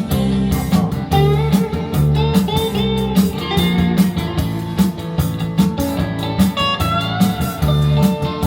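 Rock music played through Linn 360 hi-fi loudspeakers and picked up by a camera's microphones in the room: an instrumental break with lead electric guitar, its notes sliding in pitch, over steady bass and drums.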